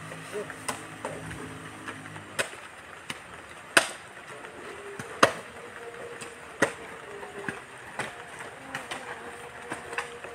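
Long-handled digging tool striking the earth while a grave is filled in by hand, a sharp chop about every second and a half. A low steady hum stops about two and a half seconds in.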